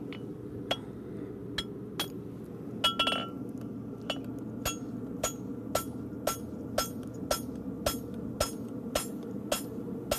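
Farrier's hammer striking a fuller to cut a concave into the inside edge of a hot steel horseshoe on the anvil: sharp ringing blows, uneven for the first few seconds and then steady at about two a second, over a steady low background noise.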